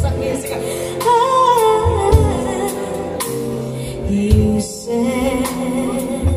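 A woman singing live into a microphone, her voice sliding through ornamented runs, over instrumental backing with held low notes and sharp percussive hits.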